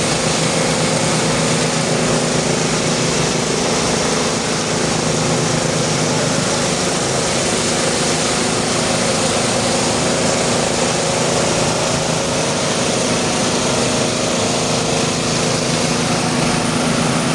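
Small engine of a concrete floor-finishing machine running steadily at constant speed while it levels a freshly cast slab.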